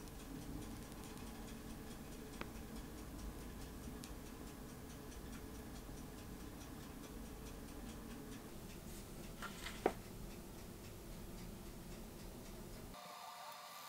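Faint steady ticking over a low room hum, with a sharp click about ten seconds in. Near the end the sound cuts to a different steady hum.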